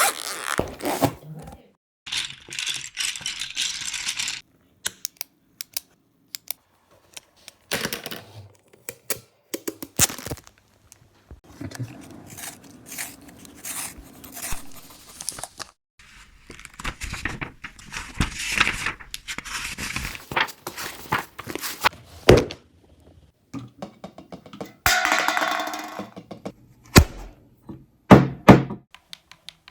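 A string of assorted everyday noises, one after another: sharp clicks and knocks, thuds, and short stretches of rustling or scraping. The loudest knocks come near the end.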